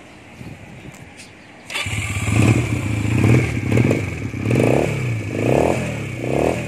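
Rebel 170 motorcycle engine starting up suddenly about two seconds in, then revved in about six short throttle blips, each rising and falling in pitch.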